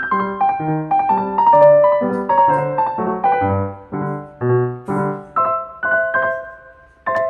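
Background piano music: a gentle melody over a bass line, with notes fading out about seven seconds in before the next phrase begins.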